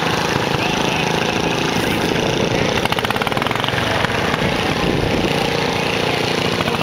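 Small garden tractor engine running steadily as the tractor pulls a weighted sled in the 1000 lb class of a garden tractor pull.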